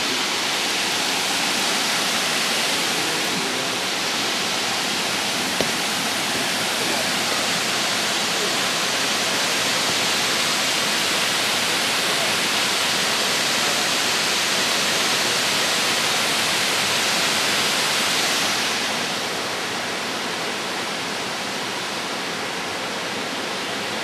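Steady rush of a gorge creek pouring over rock ledges and a waterfall. The sound gets a little quieter and duller about three quarters of the way through.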